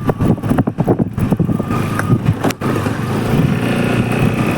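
TVS Jupiter 125 scooter ridden over bumps, its front suspension giving a rapid series of knocking clunks. This is the sign of unevenly filled shock-absorber oil. From about two and a half seconds in, the scooter's engine runs steadily with no knocks.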